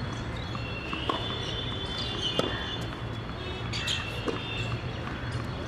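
A few sharp knocks of a tennis ball on a hard court, a second or more apart, over a steady low hum, with high chirping in the middle.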